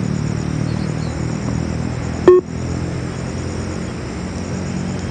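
A single short electronic beep from the Yo-Yo intermittent test recording, a little over two seconds in. It is a pace signal timing the players' shuttle runs between the markers. Under it runs a steady low rumble.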